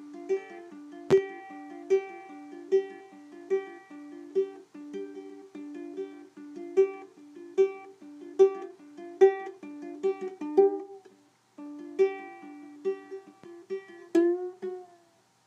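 Ukulele riff: plucked notes in a steady, repeating pattern, with a sharp click about a second in. It breaks off briefly about eleven seconds in, then resumes and ends on a sliding, bent note.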